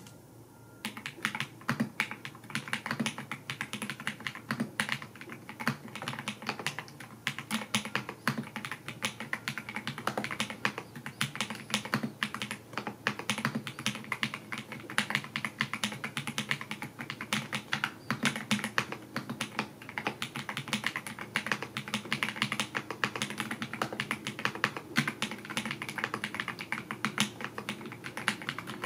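Typing on the Skyloong GK104 Pro mechanical keyboard with its factory-lubed KTT Rose silver linear switches: fast, continuous keystrokes starting about a second in.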